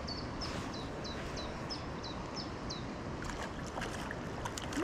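A small mountain stream rushing steadily. Over it a bird repeats a short, high, falling note about three times a second, stopping about three seconds in, followed by a few light clicks.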